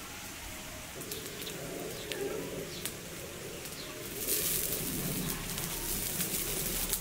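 Wood fire crackling under a cooking pot with scattered sharp pops, and a dove cooing in the background. About four seconds in, the pot lid is lifted and a steady, louder hiss of boiling water and steam sets in.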